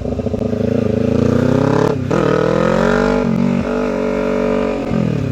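Straight-piped Kawasaki Ninja 300 parallel-twin, its muffler removed, running very loud. The engine note climbs, drops sharply about two seconds in, climbs again and holds, then falls near the end.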